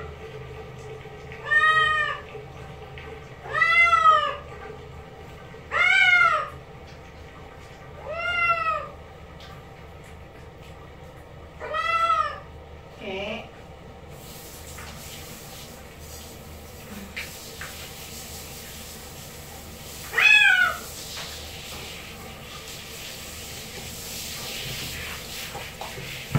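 Domestic cat meowing while being given a bath: a run of drawn-out meows that rise and fall in pitch, about one every two seconds, then a single meow later on. A steady hiss sets in about halfway through.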